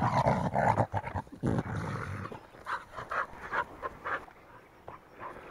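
Dogs play-fighting, growling and panting in a tussle for the first two seconds or so. Then it goes quieter, with light, regular footsteps on the dirt track.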